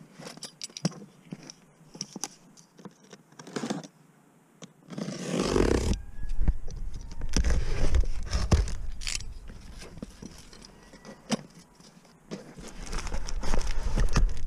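Rustling and small clicks of things being handled in a fabric bag, then a utility knife scraping and slicing through the packing tape of a cardboard box, with scattered clicks. A low rumble from about five seconds in comes and goes.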